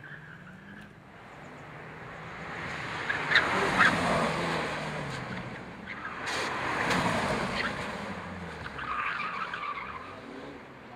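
Race cars accelerating and braking through a cone slalom, engines revving up and down as they pass, with tyres squealing in the turns. The sound swells twice: a few seconds in, with a couple of sharp cracks, and again past the middle.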